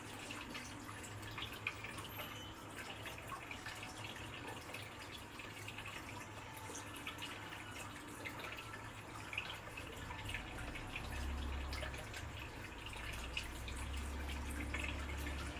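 Water dripping and trickling in small scattered splashes. A low rumble joins in about two-thirds of the way through.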